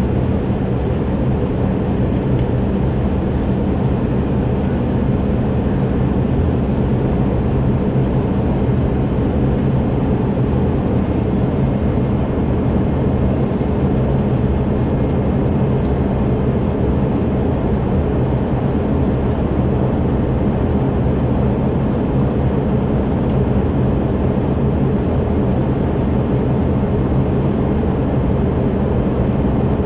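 Steady in-flight cabin noise of a McDonnell Douglas MD-83, heard from a forward seat: an even rumble of airflow with a low hum from its tail-mounted Pratt & Whitney JT8D turbofans.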